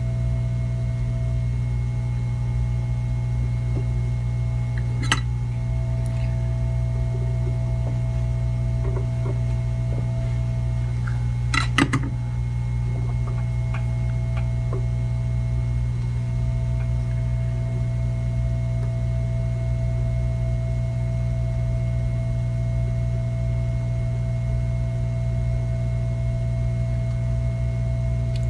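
Steady low electrical hum of workbench equipment, with a fainter higher tone that drops out twice. Two sharp clicks of a tool on metal, about five seconds in and again near the twelve-second mark, the second a short cluster.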